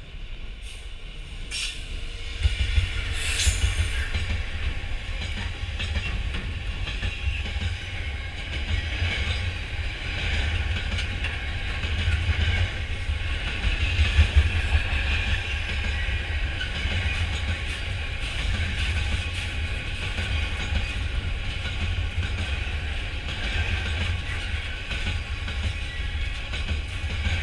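A diesel-hauled freight train of box wagons rolling past close by: a steady, heavy low rumble with wheel clatter, and a brief high squeal about three seconds in.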